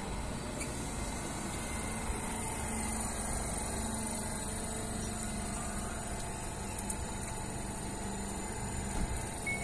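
Stadler FLIRT electric multiple unit rolling slowly along the platform, giving a steady electric hum with a faint low tone. A short high beep sounds right at the end.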